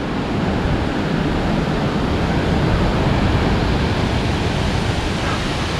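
A tall waterfall and the white-water cascades below it rushing steadily.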